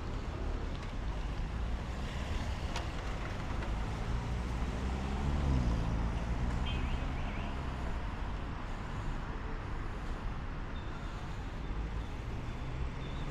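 Street traffic: a steady rumble of passing cars, with one vehicle's engine going by about five seconds in, its pitch rising and then falling.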